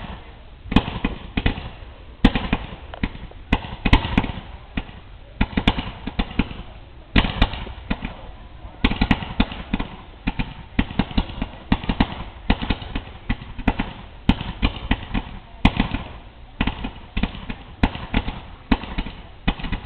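Fireworks going off in rapid succession: a dense run of sharp bangs and crackles, several a second, with louder bangs every second or two.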